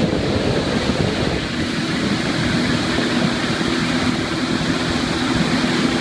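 Sea-Doo GTR 215 jet ski running at a steady speed: a steady engine drone under rushing water and wind buffeting the microphone.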